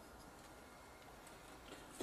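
Near silence: room tone, with a couple of very faint ticks in the second half.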